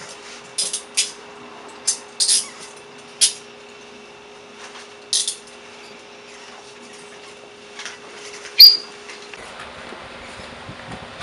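Metal handcuffs ratcheting shut: a series of short, sharp metallic clicks and rattles over the first five seconds, then one louder metallic click with a brief ring near the end, over a steady low hum.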